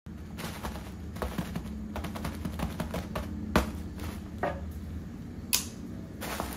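Packaging being handled and opened for unboxing: irregular small clicks and taps, a sharper knock about halfway through and a short rustling hiss near the end, over a faint steady low hum.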